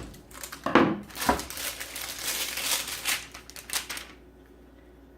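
Pre-made pie crust packaging crinkling and rustling as it is unwrapped, with a few knocks in the first second and a half; it stops about four seconds in.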